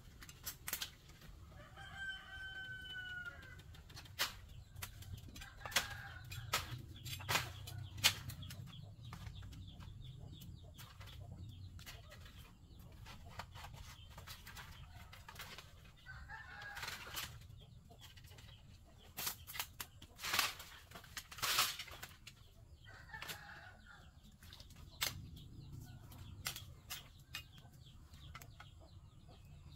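Sharp snaps, cracks and knocks of bamboo stems and twigs as a person pushes into a dense bamboo clump, loudest about 8 seconds in and twice around 21 seconds. Chickens call and cluck in the background, with one drawn-out call about two seconds in.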